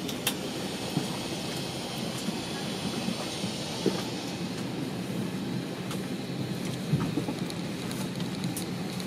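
Steady cabin noise inside an Airbus A320 during boarding: an even rush of air with a few faint clicks.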